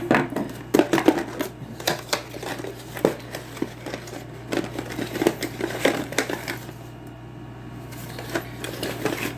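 Hands rummaging through a camera battery and charger kit's box and packaging: a quick run of clicks and knocks from plastic parts being handled, with some rustling, easing off for a couple of seconds before picking up again, over a steady low hum.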